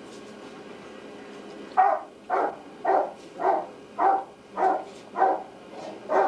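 A dog barking steadily, about two barks a second, starting about two seconds in.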